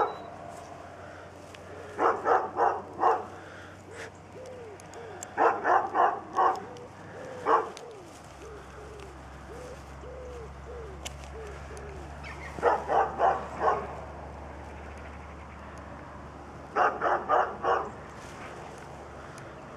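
A dog barking in five short runs of four or five quick barks each, spread through the stretch. Softer rising-and-falling calls come between the runs, and a low steady hum sets in about eight seconds in.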